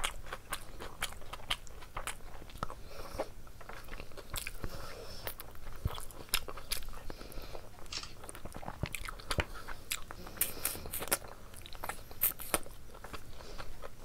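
Close-miked chewing and biting as meat curry and rice are eaten by hand: irregular wet mouth clicks and smacks with occasional crunches.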